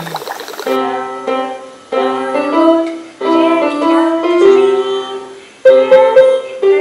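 Portable electronic keyboard played with a piano-like voice in short melodic phrases. The notes start about a second in, with brief pauses between phrases. Just before that, background music ends.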